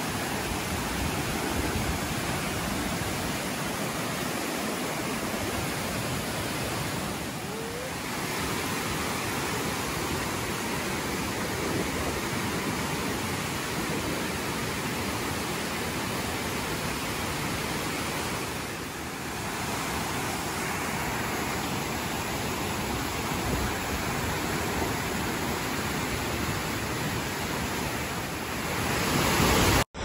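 Steep, large-flow waterfall about 90 m high cascading over rock: a steady, loud rush of falling water. It dips briefly twice and swells near the end.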